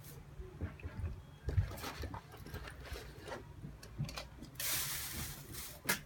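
Light knocks and taps of a metal air-conditioner mounting plate and tools being handled against a wall, with about a second of scraping noise near the end followed by a sharp click.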